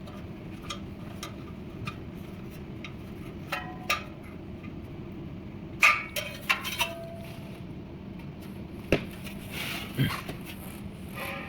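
Metal parts of a hose reel box being handled during reassembly: scattered clicks and clanks, a few of them with a short metallic ring.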